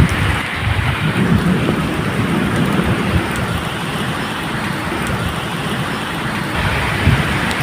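Steady medium rain with thunder rumbling low underneath, the rumble swelling in the first few seconds and again near the end.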